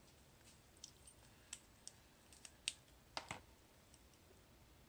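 Faint, scattered clicks of a paintbrush against the plastic watercolour palette and its paint pans while paint is picked up, with a sharper double knock a little after three seconds in.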